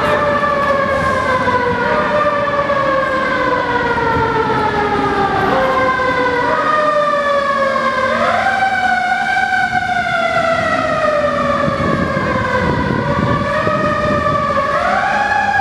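Emergency vehicle siren wailing, its pitch gliding slowly down and then jumping back up several times, over steady low street rumble.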